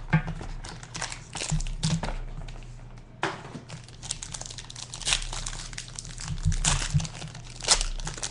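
Plastic wrapping on a box of trading cards crinkling and tearing as the box is opened, an irregular run of crackles.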